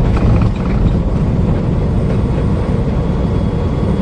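Steady low rumble of an 18-wheeler semi truck on the move: engine and road noise.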